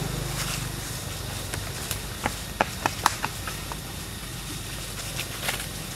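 Footsteps crunching over dry leaf litter, with a run of sharp crackles of dry leaves and twigs about two to three seconds in and a few more near the end, over a steady low hum.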